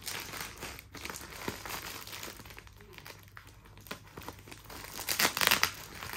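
Plastic mailer bag crinkling as it is cut and torn open with scissors, with a louder stretch of crinkling about five seconds in.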